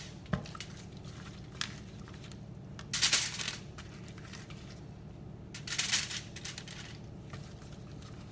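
Aluminium foil lining a baking tray crinkling as pieces of raw fish are set down on it, twice: about three seconds in and again about six seconds in, with a couple of light clicks before.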